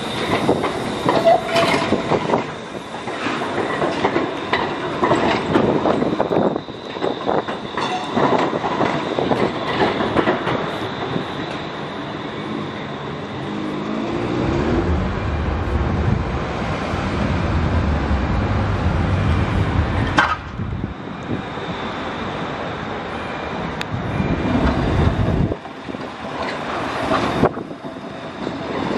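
Pesa Swing 122NaSF low-floor trams running past on street track, their wheels rumbling and clattering on the rails. A high steady whine runs through the first half, and a heavier low rumble follows in the second half.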